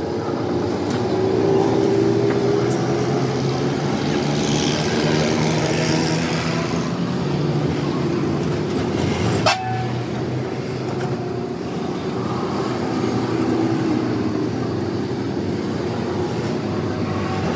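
An engine running steadily, with a single sharp click about nine and a half seconds in.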